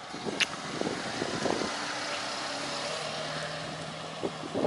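A Mercedes-Benz sedan pulling away and driving off: steady engine and tyre noise, with a short click about half a second in.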